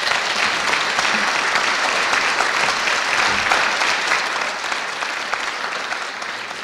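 Audience applauding, a steady dense clapping that tapers off near the end.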